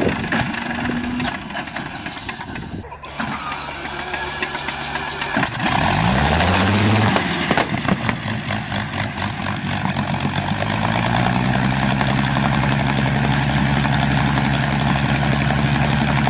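An engine starting: a loud rush of noise comes in about five seconds in, the engine note rises and falls once, then climbs again and holds at a steady high run.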